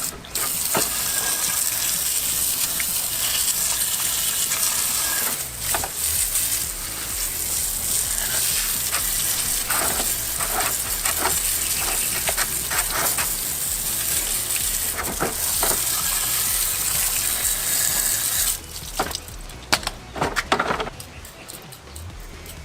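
A steady hissing spray, with short breaks about five and fifteen seconds in, which stops about eighteen seconds in, followed by a few sharp clicks and knocks.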